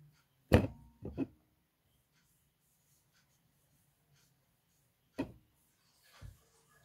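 A few sharp knocks while crocheting at a table: a loud one about half a second in, two smaller ones just after a second, and another near five seconds, with quiet handling between.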